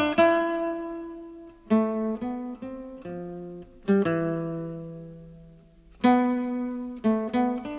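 Background music of an acoustic guitar playing plucked chords and single notes, each struck sharply and left to ring and fade, with a new chord about every two seconds.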